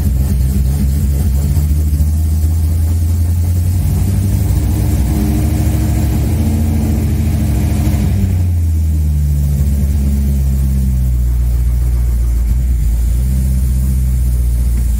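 V8 engine with Edelbrock Pro-Flo 4 electronic fuel injection idling steadily, just after a start. The idle climbs a little for a few seconds, then drops back about eight seconds in.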